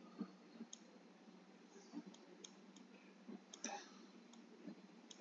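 Near silence with faint, irregular clicks and taps of a stylus on a tablet screen while handwriting.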